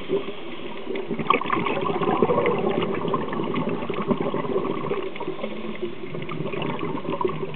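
Underwater ambience picked up by a compact camera in its dive housing: a steady rushing hiss with dense fine crackling.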